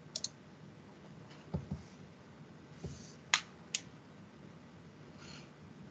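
Computer mouse clicks and a few light knocks over faint background hiss: a quick pair of clicks at the start, soft knocks about a second and a half in, and two sharp clicks a little after the middle.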